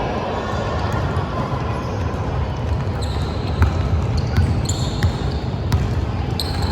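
Basketball bouncing on a hardwood gym court during a game, a few sharp knocks over the steady din of the hall.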